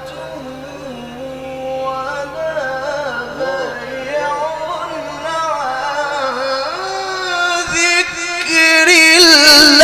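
Male Quran reciter's voice in a long, ornamented tajweed phrase, winding up and down in pitch and climbing higher and louder near the end.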